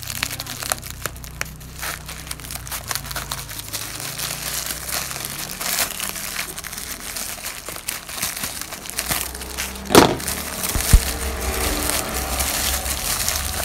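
Plastic courier mailer bag crinkling and rustling as it is cut open with scissors and the hand rummages inside it among the packed boxes. A loud sharp knock about ten seconds in, and a smaller one a second later.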